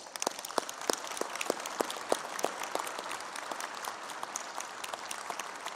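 Audience applauding in a large hall: a dense patter of many hands clapping, with a few louder, closer claps standing out about three times a second.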